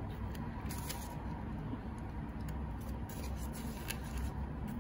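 Light rubbing and small scattered clicks as the ring light's black tripod stand and coiled cable are handled in foam packaging, over a steady low hum.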